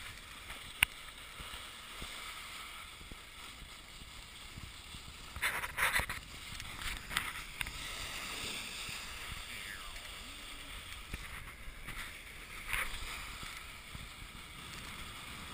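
Snowboard sliding and carving on packed snow: a steady hiss, with a couple of louder edge scrapes, about six seconds in and again near thirteen seconds. A single sharp click just under a second in.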